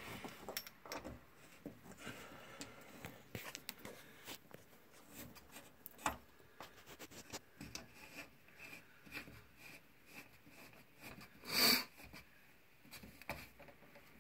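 Faint scattered clicks and rubbing of a water supply hose's threaded coupling being handled and screwed onto a washing machine's hot water inlet, with one brief louder scrape near the end.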